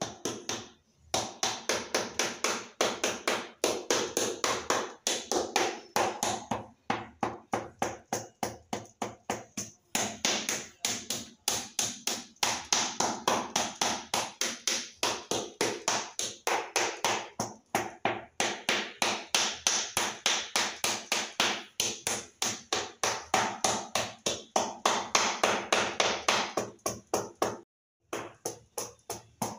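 Rubber mallet tapping a ceramic floor tile, rapid and even at about four knocks a second, with brief pauses, to bed the re-laid tile down into epoxy adhesive.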